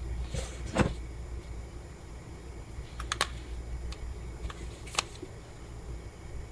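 A handful of sharp clicks and taps from hands handling a phone and its packaging, the loudest about a second in, over a low steady hum.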